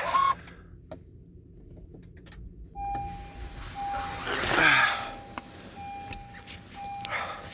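A car's warning chime beeping: one steady tone sounding on and off, starting a few seconds in. Partway through, a louder whooshing noise swells for about a second.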